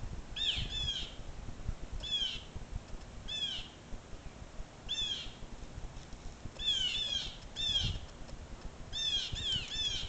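Blue jays giving harsh, down-slurred jay calls, about eleven in all, singly or in quick pairs and threes every second or two: the alarm calls of jays mobbing a dog.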